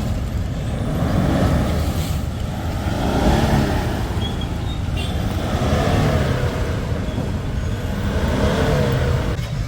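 Toyota Fortuner diesel engine being revved up and back down again and again, its pitch rising and falling about four times.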